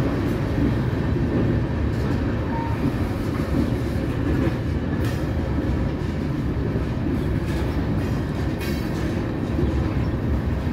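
Freight train of tank cars and covered hoppers rolling past at low speed: a steady rumble of steel wheels on the rails.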